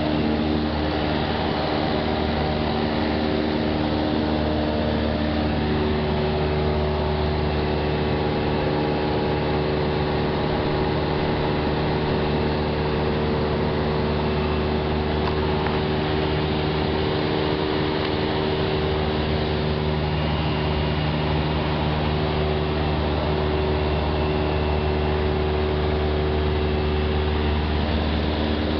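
A Cessna 172's piston engine and propeller running steadily in flight, heard from inside the cabin as an even, unbroken hum.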